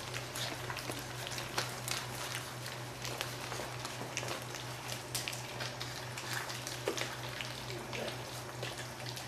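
Greater Swiss Mountain Dog puppies, four weeks old, lapping and licking wet puppy mush from bowls: a dense, irregular patter of small wet smacking clicks over a steady low hum.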